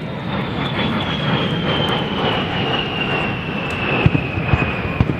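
Aircraft engine noise as a plane flies past, with a high whine that slowly falls in pitch. A few sharp pops near the end.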